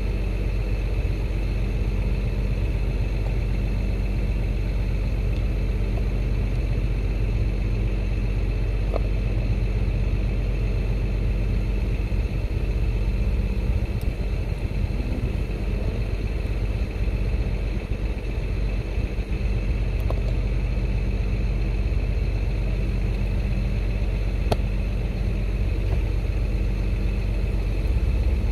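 A steady low engine drone from a motor idling unchanged throughout, with a few faint single clicks of metal tools.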